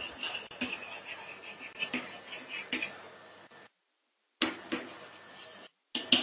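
Chalk on a blackboard as words are written: a run of short sharp taps and scratches. The sound cuts out to silence twice for a moment partway through.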